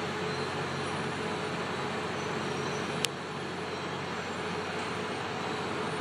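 Steady drone of road construction machinery engines running, with one sharp click about halfway through.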